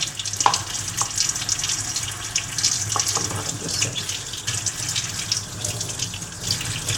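Sticky cornstarch-and-shampoo slime being squished and worked by hand: a wet, irregular crackling squelch. The slime is still too sticky, with more cornstarch just added.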